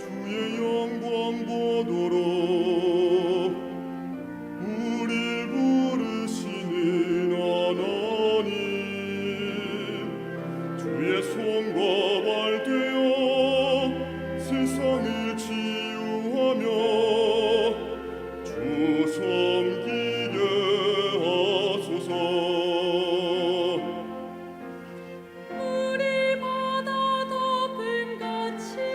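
Church choir singing a sacred anthem, long sustained notes with vibrato over accompaniment.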